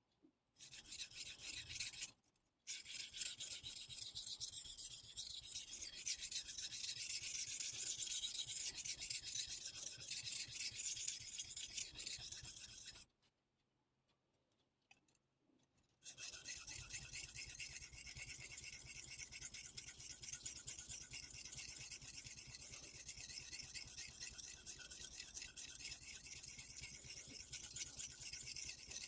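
Steel knife blade being rubbed steadily against an abrasive, a scratchy hiss of hazing and polishing the blade face. The sound drops out briefly about two seconds in and again for about three seconds around the middle.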